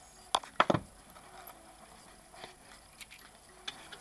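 Soft-faced mallet tapping a camshaft bearing cap down onto its studs on an Alfa Romeo Montreal cylinder head, seating it over a Plastigauge strip for a bearing-clearance check. There are about four quick knocks in the first second, then only faint small clicks.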